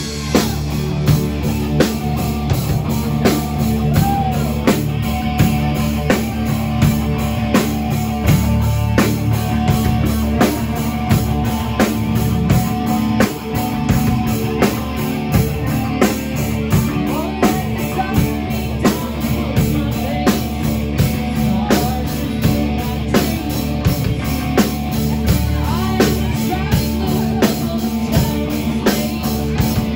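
Live rock band playing: drum kit keeping a steady beat under electric guitar, bass guitar and keyboard.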